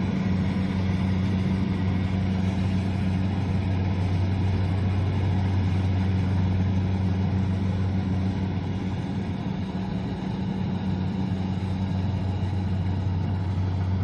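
Kubota DC-70 combine harvester's diesel engine running steadily under harvesting load, a constant low drone with no change in pitch.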